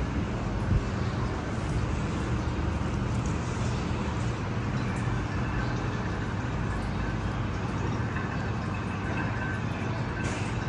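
Steady low background rumble with a faint hum, without distinct events.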